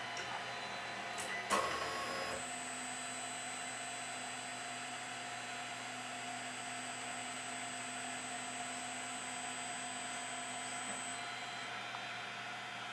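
Two sharp clicks in the first two seconds, then a steady electrical hum with a thin high-pitched whine, both of which stop near the end.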